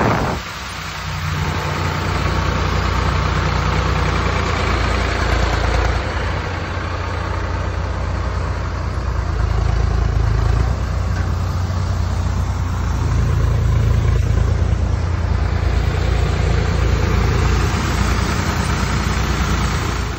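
Farm tractor's diesel engine running steadily under load as it drives a mobile mud-brick machine.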